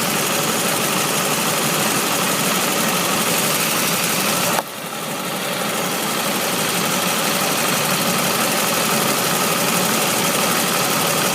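1999 Pontiac Grand Prix GT's 3.8-litre V6 idling with a fast, even ticking from an exhaust leak where the exhaust pipe has come loose at the header. About four and a half seconds in the sound drops suddenly, then builds back up.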